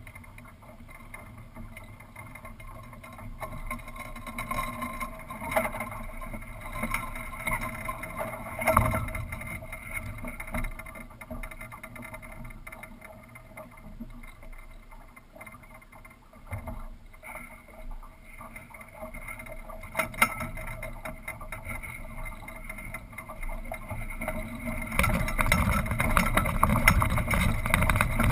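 Small sailboat under sail, heard from a camera high on its mast: a steady rush of wind and water with occasional sharp knocks, growing louder near the end.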